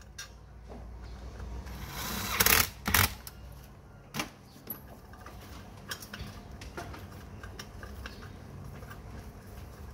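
A small electric motor humming steadily, with two loud metallic clanks about two and a half and three seconds in, a sharp click about a second later, then light scattered tapping and clicking.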